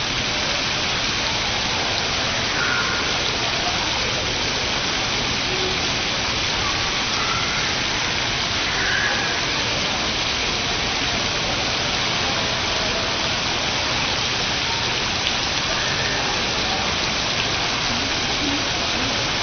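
Water falling in a steady rush from an overhead digital water curtain, like heavy rain.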